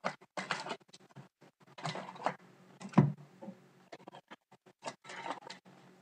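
Trading card packs and cards being handled and opened: irregular crinkling and rustling of wrappers and card stock, with a sharp snap about three seconds in.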